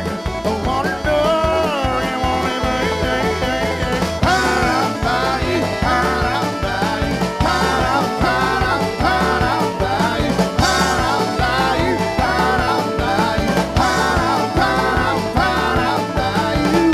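Live string band playing an upbeat country-style song, with mandolin and accordion over a bass line that bounces between two notes. A short melody phrase starts repeating about four seconds in.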